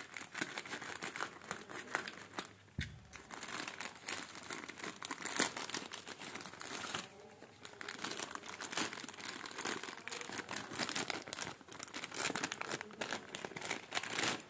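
Plastic courier mailer bag crinkling and rustling as it is slit open with a utility knife and torn apart by hand, in irregular crackly bursts with a short lull about halfway through.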